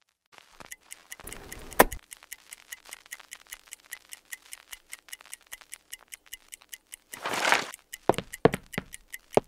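Mechanical alarm clock ticking steadily, about five ticks a second. A rustle ending in a sharp knock comes about two seconds in, and another rustle followed by a few knocks near the end.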